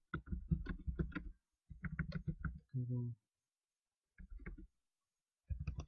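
Typing on a computer keyboard: runs of quick key clicks with short pauses between words, and a brief low hum about halfway through.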